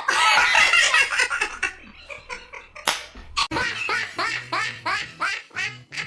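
Comedy meme laugh sound effect made of quacking, duck-like calls: a fast, loud run of cackles for about two seconds, then a steadier string of squawky calls about two a second.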